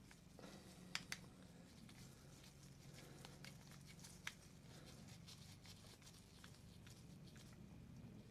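Faint scratching and ticking of small hand work, with two sharp clicks about a second in and another a little past four seconds: a small screwdriver tightening the screw on a battery soldering iron's battery cap.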